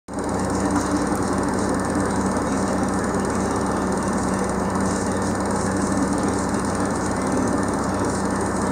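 Detroit Diesel 6V53 two-stroke V6 diesel engine running steadily.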